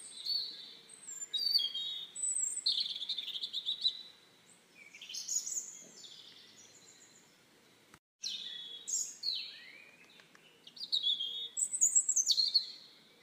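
Songbirds singing: a run of short, varied phrases of chirps, trills and sliding notes, over faint outdoor background noise. The sound cuts out for a moment about eight seconds in, then the song resumes.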